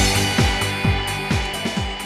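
Background music with a steady kick-drum beat, about two beats a second, slowly fading.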